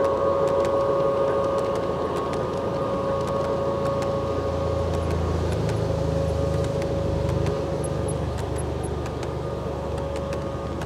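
Garden-scale LGB model train's coaches rolling past on a curve of track, with a steady hum over a low rumble and scattered clicks from the wheels over the rail joints. It eases off a little in the last few seconds as the train moves away.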